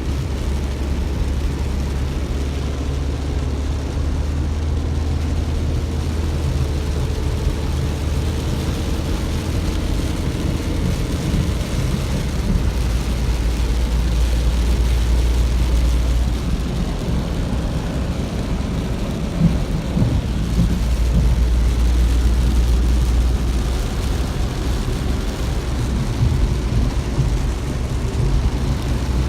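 Steady low rumble of a moving vehicle, mostly deep road and engine noise, holding much the same level throughout.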